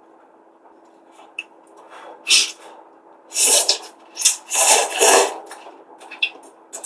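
Ramen noodles being slurped: a run of short hissing slurps in quick succession, starting about two seconds in.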